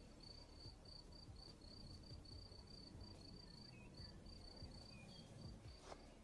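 Faint cricket chirping, an even run of short high chirps about three or four a second. A couple of faint bird calls and a single click near the end.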